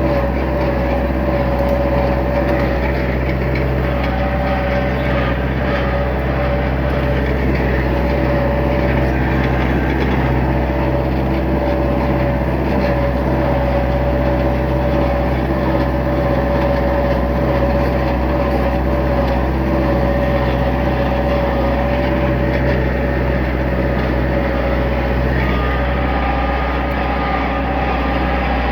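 Tractor engine running steadily under load at about 1700 RPM while towing an oak log on a chain, with a steady whine over the low rumble.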